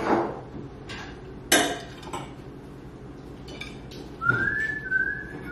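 A sharp, ringing clink of tableware about a second and a half in, with a few lighter knocks. Near the end, a person whistles a few short high notes, the first sliding up.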